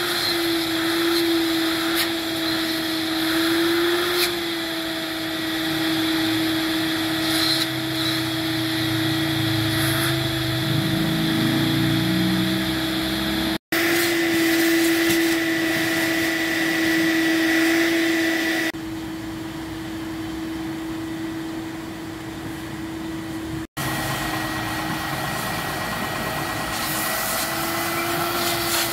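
Canister vacuum cleaner running with a steady whine as its hose sucks over a van's floor mats and carpet, the sound breaking off twice where the clip is cut. A low sound rising in pitch joins briefly about ten seconds in.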